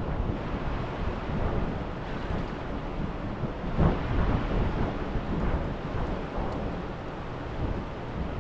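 Wind buffeting the microphone over the rush of fast-flowing river water, with a louder burst about four seconds in.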